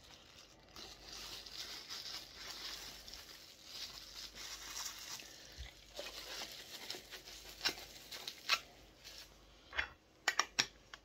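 Thin plastic wrapper bag crinkling as it is handled for several seconds, then a few sharp clicks and knocks near the end.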